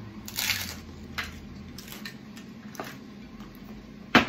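A crisp hard taco shell crunching as it is bitten, about half a second in, then a few faint clicks of food being handled, and a single sharp knock near the end.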